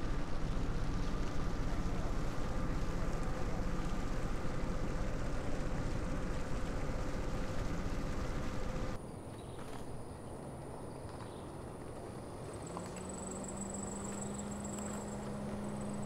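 Harbour ambience: a steady low rumble with a faint steady hum, cutting off abruptly about nine seconds in. Quieter outdoor ambience follows, with a steady low hum and a thin high whine joining in the last few seconds.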